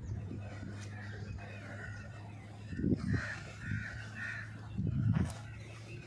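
Western swamphen held in the hand giving a short run of harsh, crow-like squawks about three seconds in. Two low thuds come before and after the calls, and a steady low hum runs underneath.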